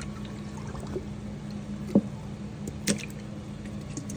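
Wet squishing and dripping as a raw turkey is handled and its cavity emptied, with two sharp knocks about two and three seconds in.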